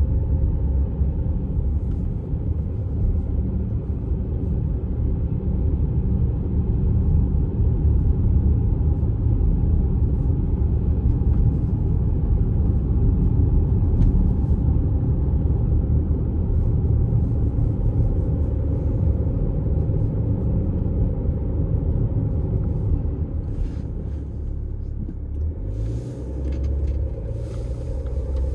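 Steady low rumble of a diesel vehicle driving, engine and road noise together. It gets quieter for a few seconds near the end.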